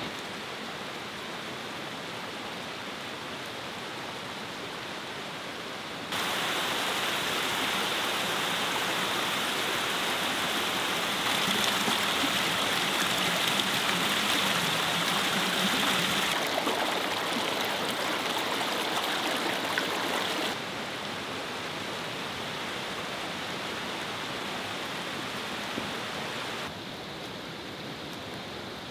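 Small woodland stream running over rocks and an ice-fringed log, a steady rush of water. It jumps louder about six seconds in and drops back about twenty seconds in.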